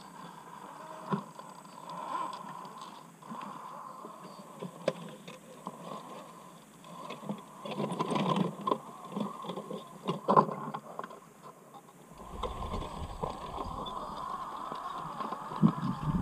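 Scale RC rock crawlers' electric motors and gearboxes whining at crawling speed, rising and falling with the throttle, while their tyres and chassis scrape and knock on rock. The scraping and knocking gets denser about eight to ten seconds in, with one sharp knock near the end of that stretch.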